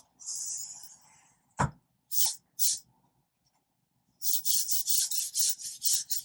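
Pencil eraser rubbing on paper to remove a light pencil guide line: a short rub, a single knock about one and a half seconds in, a couple of short strokes, then quick back-and-forth scrubbing, about five strokes a second, near the end.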